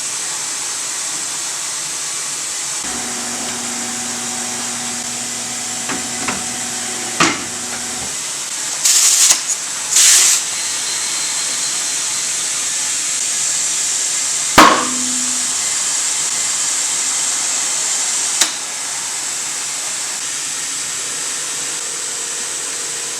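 Tire-changer machine mounting a tire onto a wheel rim, over a steady air hiss. Its motor hums for about five seconds, with a knock near the end of that run. Then come two short blasts of air, and later a loud sharp bang with a fainter knock a few seconds after it.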